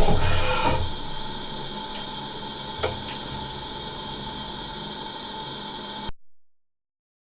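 Machine tool running with no coolant and no cut: louder with shifting tones for the first second, then a steady hum and whine, with a single click about three seconds in. The sound cuts off abruptly about six seconds in.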